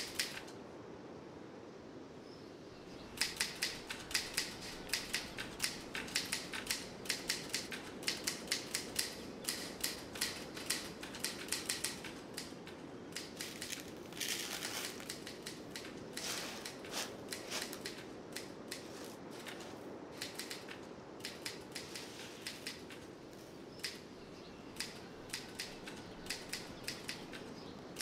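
A long run of irregular, sharp dry clicks and taps, several a second, over a steady low hum. The clicks start about three seconds in and thin out in the second half.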